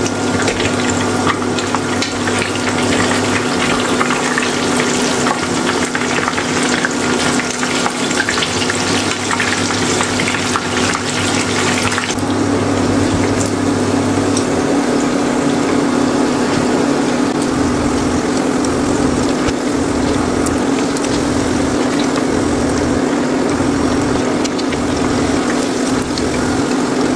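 Vietnamese spring rolls (chả giò) deep-frying in a pan of hot oil: a steady sizzle, with a steady low hum underneath.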